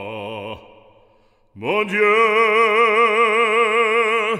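Operatic solo voice singing a French hymn: a held note with vibrato ends about half a second in, and after a short pause a new long note with vibrato begins and is held.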